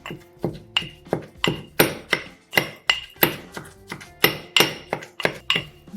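Pestle pounding fish chutney in a mortar, about three strikes a second, each with a short ringing clink, working in the added salt.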